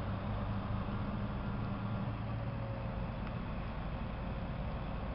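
Bombardier class 220 diesel locomotive's engine running, a steady low hum under an even hiss.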